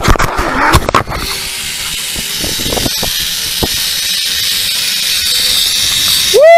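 Zipline trolley pulleys running along the steel cable: a few knocks and rattles in the first second at the push-off, then a steady rushing hiss with a high whine that grows as the ride picks up speed, mixed with wind on the microphone. Right at the end a loud, high squeal sets in.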